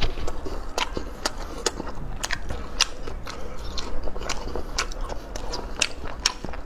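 Close-miked chewing of a mouthful of braised pork belly, with wet lip-smacking clicks about two a second.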